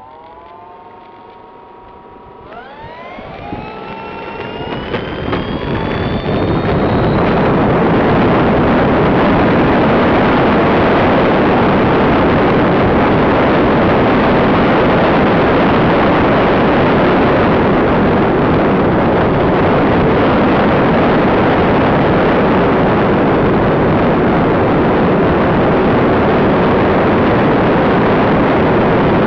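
Radio-control model plane's motors whining steadily, then rising in pitch as the throttle opens about two and a half seconds in. The sound turns into a loud, steady rush of airflow and wind on the tail-mounted camera's microphone, with the motor noise buried in it.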